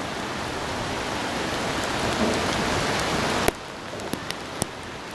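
Heavy rain falling as a steady hiss. About three and a half seconds in, it drops to a quieter hiss with a few sharp ticks of drops.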